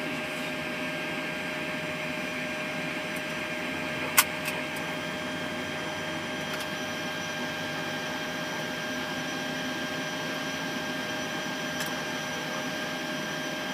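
Steady flight-deck hum in a Boeing 737-800 during engine start, with a few steady tones over it. A sharp click, like a switch, comes about four seconds in, and a fainter one comes near the end.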